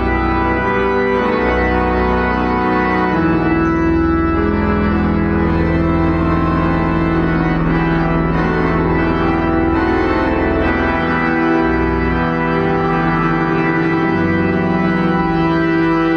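Church organ playing slow, held chords that shift every second or two.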